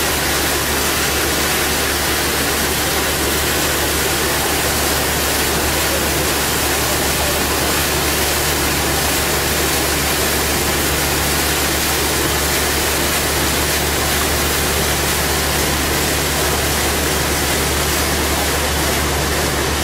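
River cruise boat under way: a steady, loud rushing noise with a low hum beneath it.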